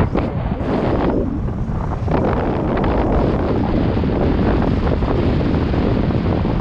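Wind buffeting an action camera's microphone as a CTM Scroll 2018 mountain bike is ridden down a trail, over a steady rumble of tyres on rough ground. Many small knocks and rattles from the bike run through it, thickest from about two seconds in.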